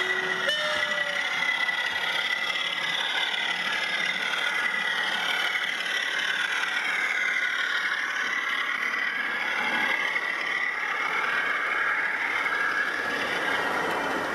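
00 gauge model diesel locomotive with a DCC sound decoder: its two-tone horn finishes about a second in, then the diesel engine sound and the steady whir of the model train and its coaches running past on the track.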